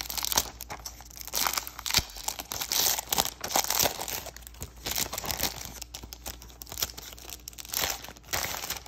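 Thin clear plastic wrap being torn and peeled off a cardboard paint box, crinkling in irregular bursts under the fingers.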